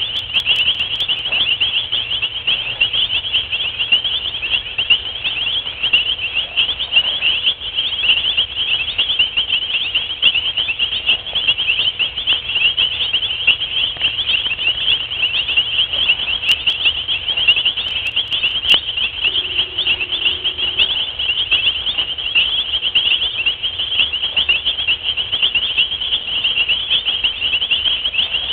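Night insect chorus: a continuous, shrill, high trilling from many insects at once, holding steady throughout.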